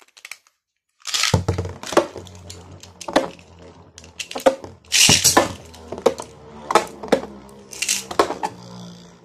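Beyblade spinning tops, a Zero-G top and a Burst top, are launched into a plastic stadium about a second in. They then spin with a steady low whir and clack against each other and the stadium wall again and again, the loudest clashes about five and eight seconds in.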